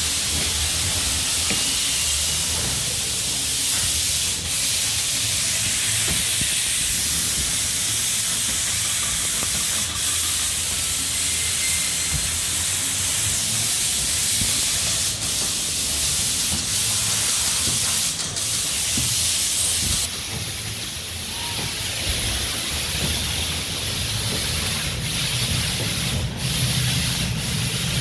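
Steady hissing background noise of a large factory floor, with a few faint knocks; about two-thirds of the way through the hiss narrows and a low hum comes in.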